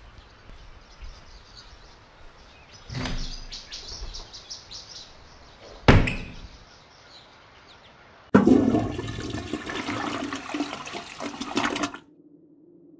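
A rattling clatter, then a single sharp bang, then about four seconds of loud rushing water that cuts off abruptly.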